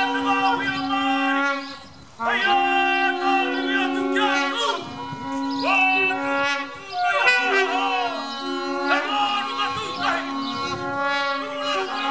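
Traditional Māori trumpet blown in long held notes, broken by short pauses for breath, with voices calling over it.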